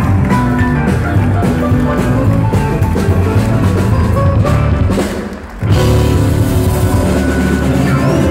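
Live band playing an upbeat number on drum kit, electric guitar and keyboard, with a short break about five seconds in before the band comes back in.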